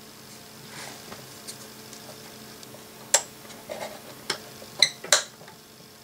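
Light handling noise, then several sharp clicks and taps, about five in the second half, as hands fit and press down the white cover pieces over a breaker panel.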